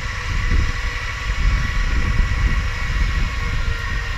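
Off-road vehicle engine running steadily at idle, with a low uneven rumble underneath.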